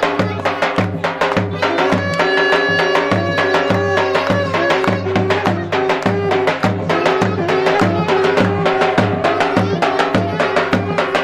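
Folk dance music from a live band: a large double-headed bass drum beating a steady rhythm under a saxophone and clarinet playing a wavering melody, with one long high held note about two seconds in.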